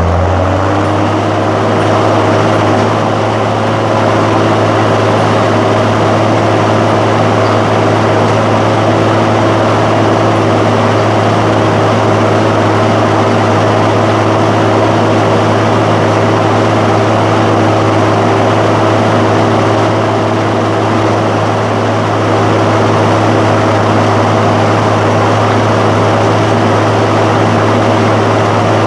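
John Deere 7515 tractor's diesel engine running loud and steady, its pitch rising briefly right at the start before holding level.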